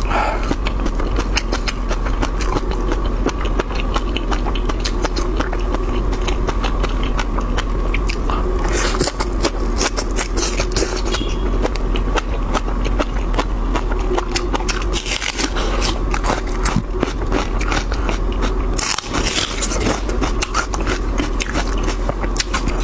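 Close-miked chewing of shrimp topped with fish roe and cilantro: a dense run of wet clicks and crackles, over a steady low hum.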